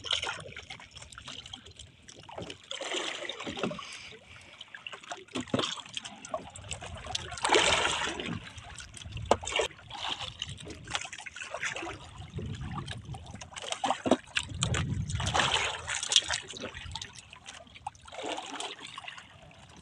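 Sea water splashing and lapping against a small outrigger boat's float and hull, in irregular bursts.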